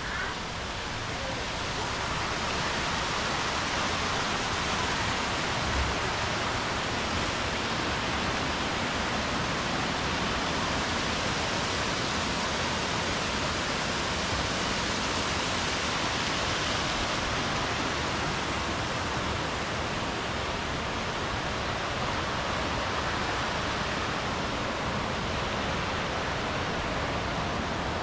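Rushing water of a mountain stream: a steady, even hiss that swells over the first two seconds and then holds.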